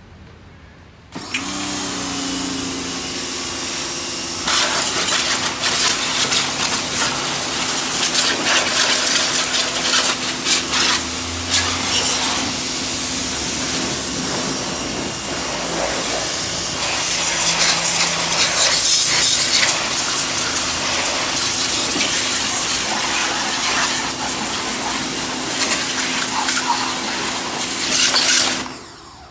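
Electric Ryobi pressure washer switching on about a second in, its motor and pump humming steadily. From about four seconds in, the hiss of the high-pressure water jet spraying onto a lawnmower is added. Both cut off near the end.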